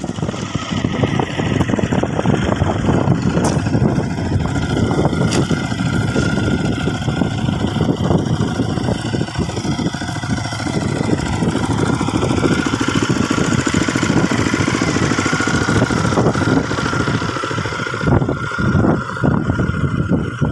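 ISEKI PC4 rice transplanter's small engine running steadily with a fast, even chugging beat, the beat breaking up unevenly near the end.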